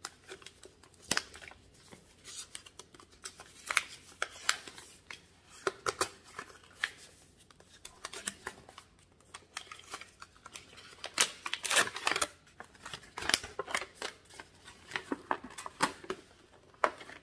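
Stiff white wrapping paper rustling and crackling as hands unfold it from a small gift box, in many short, crisp crackles, with a louder flurry of them a little past the middle.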